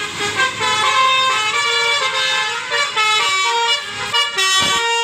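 Indonesian bus 'telolet basuri' musical horn playing a quick tune of stepped, held notes.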